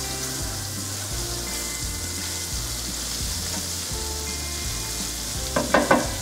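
Butter melting and sizzling in a non-stick frying pan, stirred with a silicone spatula: a steady foaming hiss. Near the end comes a quick cluster of knocks from the spatula against the pan.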